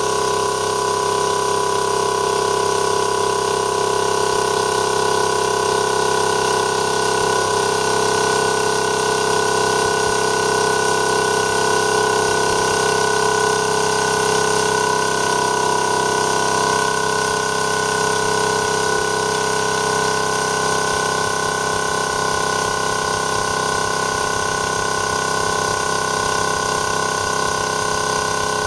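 TWO STAR HT25L-15A 12-volt DC piston air compressor running steadily as it fills its air tank, a constant mechanical hum with a few steady tones.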